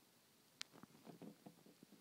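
Okeetee corn snake swallowing its prey: faint small clicks and soft crackles, with one sharper click about half a second in.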